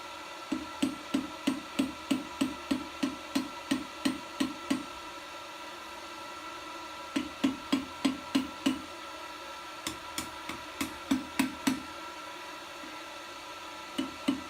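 Hand hammer striking hot rebar as the top of a bottle opener is forged to shape: runs of dull blows, about three a second, broken by short pauses.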